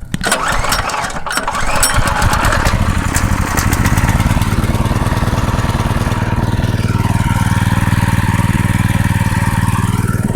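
Predator 212cc single-cylinder four-stroke engine starting: it catches within the first two seconds and settles into a steady run, on freshly changed oil.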